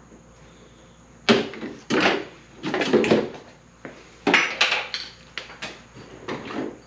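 A string of sharp knocks and clatters at uneven spacing, starting about a second in: tools and the WRX's plastic headlight housing being handled as the headlight is unbolted and pulled out.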